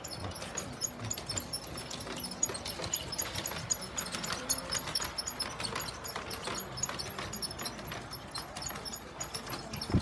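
Large-scale model train running around its track, its wheels clicking over the rail joints in an irregular patter over a low running rumble.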